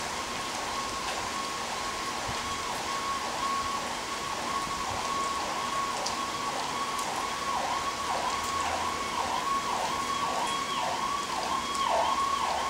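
Emergency vehicle siren sweeping up and down, slowly at first and then in faster cycles from about halfway, growing louder near the end, over the steady hiss of rain.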